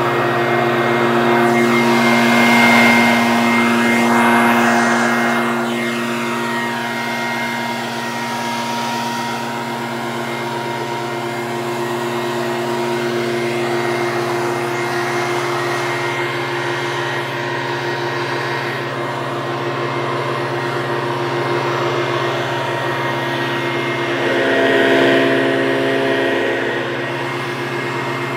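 Leaf blower running steadily, a constant engine hum under a rush of air, swelling briefly twice: a few seconds in and again near the end.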